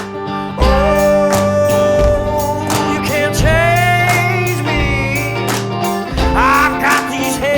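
Blues song: a sung vocal line over guitar with a steady beat.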